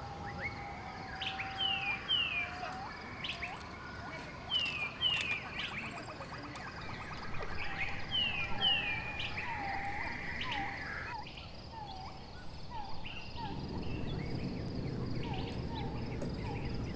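Forest birds calling: repeated pairs of short, high, downward-sliding chirps, with a lower series of falling notes in the second half. A steady background hum fades out about two-thirds of the way through, and a low rumble comes in near the end.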